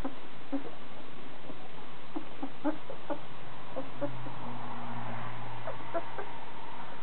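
Newborn puppies squeaking and whimpering in many short, high calls as they crawl over one another, with a low steady hum for about two seconds in the middle.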